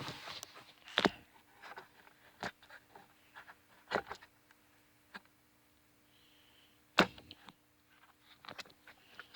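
Scattered sharp clicks and knocks from metal hand tools being handled and set down. The loudest come about a second in and about seven seconds in.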